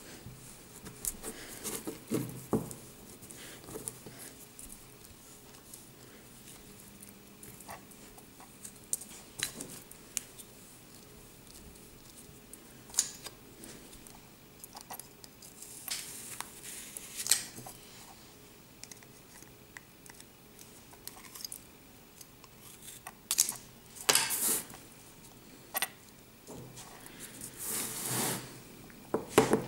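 Hands working kinetic sand with plastic castle moulds and a plastic knife: scattered soft clicks and taps of plastic, with a few longer scraping, rustling stretches about halfway through and near the end.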